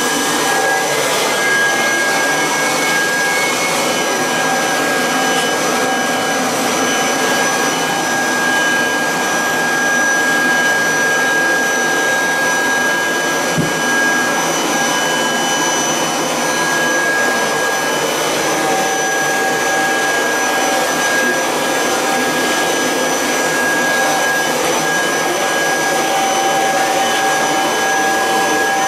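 1986 Kirby Heritage 2 vacuum cleaner running steadily in canister mode with the hose attached, a constant high motor whine. There is one faint knock about halfway through.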